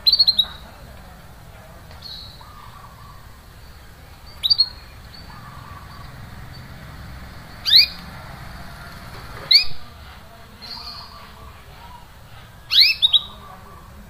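Domestic canary giving short, sharp 'cuit cuit' chirps, each a quick upward-sweeping note. They come singly or in quick pairs about every two to four seconds, with fainter chirps in between.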